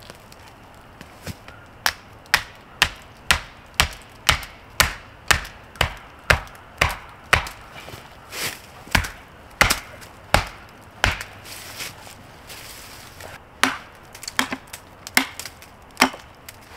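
Wood being chopped: a steady run of sharp strikes about two a second, slowing after a dozen or so, then a short pause and a few more strikes near the end.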